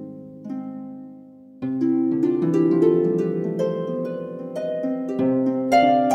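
Background music: a gentle instrumental of plucked string notes that dies away about a second in, then comes back fuller with a run of overlapping notes.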